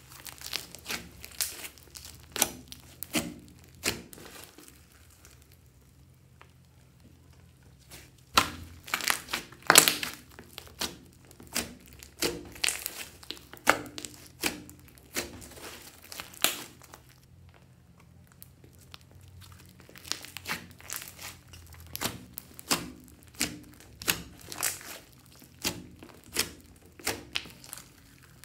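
Hands squeezing and stretching a large mass of slime mixed with foam beads: irregular sticky pops and crackles, with two brief lulls.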